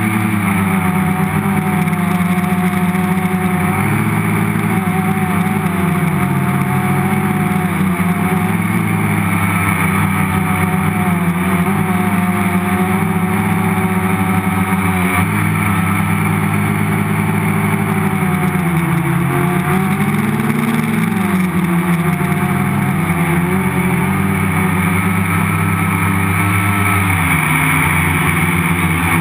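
Electric motors and propellers of a multicopter in flight, heard from the camera mounted on its frame: a steady buzzing hum whose pitch keeps wavering up and down as the controller adjusts the motor speeds.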